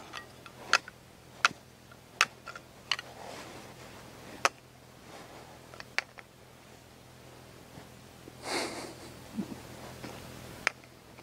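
Small metal cup-and-lever nutcracker clicking against the very hard shell of a large 'President' walnut, several sharp irregular clicks as it is squeezed and repositioned without the shell cracking. A sniff of breath about eight and a half seconds in.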